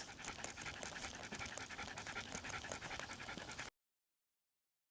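Shiba Inu panting rapidly, close to the microphone, until the sound cuts off suddenly a little before the end.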